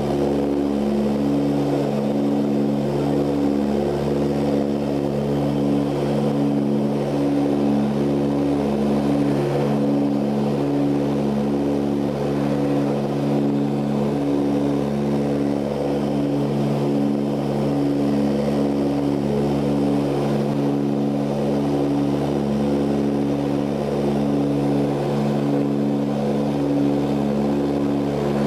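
Steady drone of an Ilyushin Il-18's turboprop engines and propellers in cruise, heard inside the cabin, its deep tones pulsing in a slow, regular beat.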